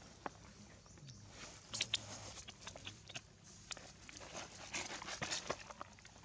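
Dry leaf litter crackling and rustling in irregular clusters of sharp clicks, loudest about two seconds in and again around five seconds in.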